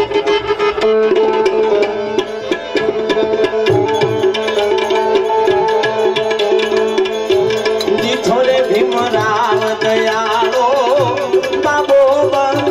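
Instrumental interlude of Indian devotional folk music: harmonium playing a melody over a held drone, with hand-drum strokes coming in about four seconds in. A wavering melody line joins near the end.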